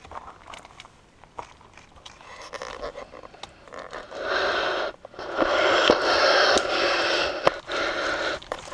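A Dobermann tearing at and dragging a stick through a pile of dead branches: wood scraping and crackling against brush, with sharp twig snaps. Faint rustling and clicks at first, then about halfway through three long, loud stretches of scraping.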